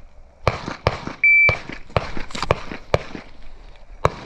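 A shot timer's start beep, one short steady electronic tone, followed by a string of pistol shots fired at irregular spacing as the course of fire begins. A couple of sharp knocks come just before the beep.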